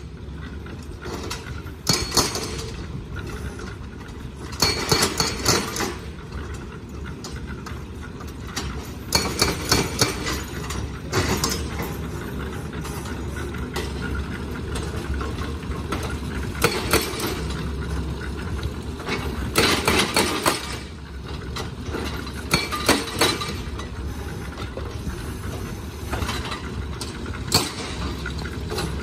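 Machinery engine running steadily at idle, with short spells of scraping and clinking every few seconds as gravel is shovelled into metal buckets.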